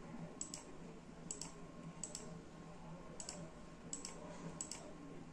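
About seven sharp, single clicks at irregular intervals from operating a laptop's controls, over a faint steady hum.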